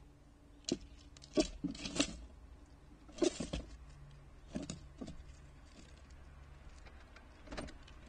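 Irregular sharp clicks, knocks and scrabbling on a wooden bird feeder as an Ezo squirrel clambers about the feeder and handles seed in its tray. The busiest clattering comes in the first half, with a last knock near the end, over a steady low hum.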